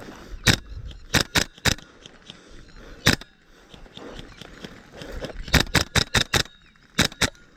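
Airsoft rifle firing single shots in quick groups, about a dozen sharp cracks: four early, one alone, a fast string of six, then a pair near the end.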